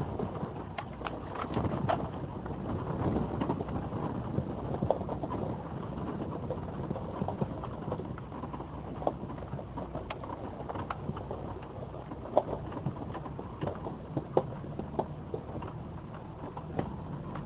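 Vehicle driving slowly over rough, bushy ground: a steady low rumble with frequent knocks and rattles.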